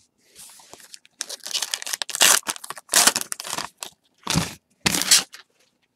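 A trading-card pack wrapper being torn open and crinkled, in a run of irregular rustling bursts that are loudest about two to three seconds in and again near the end.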